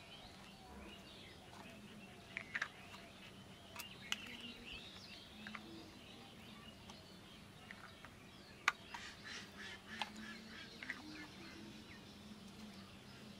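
Plastic lids of an ice lolly mould being pressed on and snapping into place: a series of sharp clicks, the loudest about nine seconds in. Birds chirp faintly in the background.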